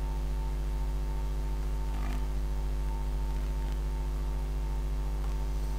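Steady electrical mains hum with its evenly spaced overtones, picked up by the recording microphone. There is one faint tick about two seconds in.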